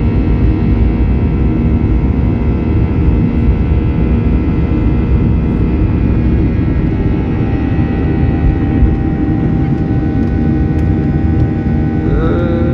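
Jet airliner's engines at takeoff power, heard inside the cabin: a loud, steady low rumble with several steady whining tones over it.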